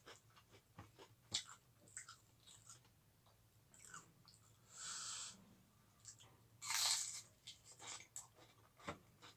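Close-up chewing of crisp food (raw bitter gourd and fried crackers with rice), a run of small sharp crunches. There are two longer hissing rushes about five and seven seconds in, the second the loudest.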